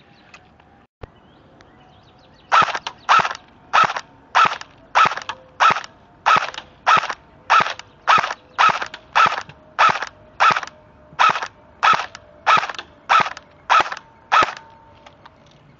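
An airsoft M4 rifle firing about twenty single shots at a first-generation iPod Touch's screen, each a short crack, evenly spaced a little over half a second apart. The shots begin a couple of seconds in and stop shortly before the end.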